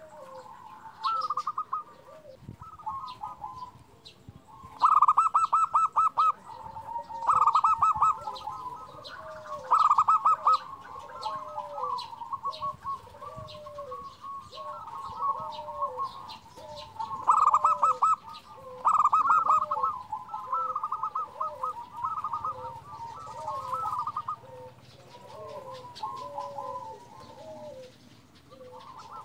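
Zebra doves (perkutut) cooing: a short low note repeats about once a second, under louder runs of quick, stuttering coo notes that come and go.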